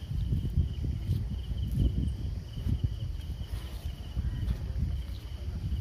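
Insects chirring in a steady, evenly pulsing high trill over a louder, irregular low rumble.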